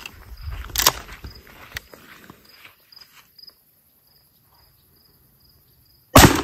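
A single 12-gauge shotgun shot near the end, sudden and by far the loudest sound, its report trailing off. Before it, insects chirp in a steady pulse, with a few sharp knocks and clicks in the first two seconds.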